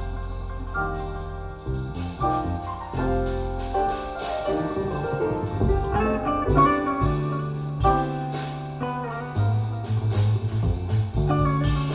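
Small-group jazz recording: a low bass line moving from note to note under a drum kit's cymbal strokes and melodic instrument notes.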